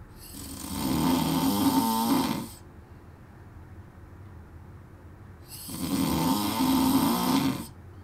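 A sleeping man snoring: two long snores about five seconds apart, each lasting around two seconds.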